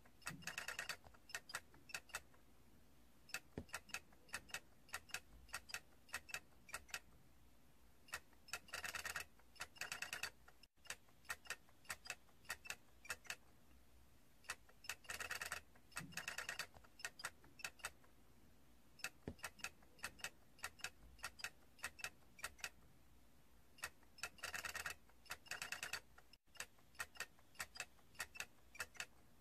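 Small plastic stacking figure toy clicking and rattling as it rocks: sharp clicks in quick irregular runs, with three dense rattling bursts.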